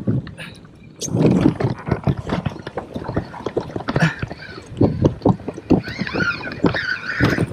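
Water slapping and sloshing against a plastic kayak hull, with irregular knocks, while a fishing reel is worked during a fight with a hooked salmon. Near the end a wavering high whine sounds for about a second and a half.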